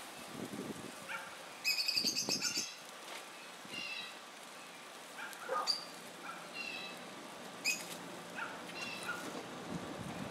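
Songbirds calling: short high chirps every second or so, with a louder rapid chatter about two seconds in. Soft low knocks of foil pans being set on the grill grate come between them.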